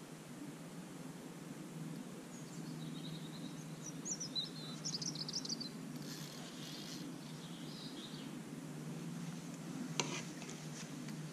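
Outdoor ambience: small birds chirping and singing a few seconds in, over a steady low background noise. A single sharp click comes near the end.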